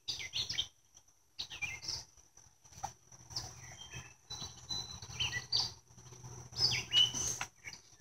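Birds chirping in short, repeated calls over a steady high-pitched insect drone.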